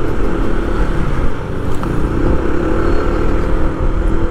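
Engine of a moving road vehicle running steadily, with road and wind noise.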